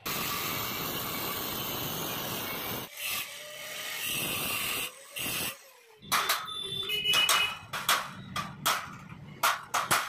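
Angle grinder with a cutting disc cutting into a stainless steel door frame, one long cut followed by two shorter passes over the first five seconds. From about six seconds, a hammer striking a punch held against the steel, a rapid run of sharp metallic strikes, some ringing.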